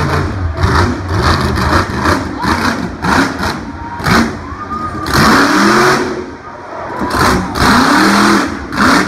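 Monster truck engine revving hard several times, its pitch climbing and dropping with each burst of throttle over a continuous roar.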